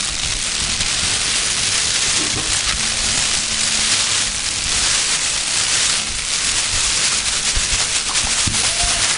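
Fire crackling sound effect: a steady hiss like a light wind, dense with small crackles.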